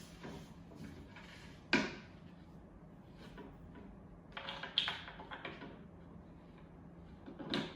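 Parts of a bed platform being handled during assembly: a sharp knock about two seconds in, a cluster of taps and clatters around the middle, and another knock near the end, over a faint steady hum.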